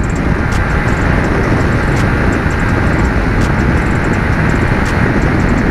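Steady loud rush of wind and road noise on the microphone of a Yamaha MT15 motorcycle at riding speed, with no clear engine note standing out.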